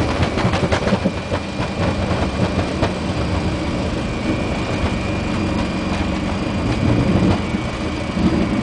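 Cabin noise of a Fokker 100 airliner rolling fast down the runway on landing: the steady hum of its rear-mounted Rolls-Royce Tay turbofans under the rumble of the wheels and a constant rattle of small knocks from the airframe.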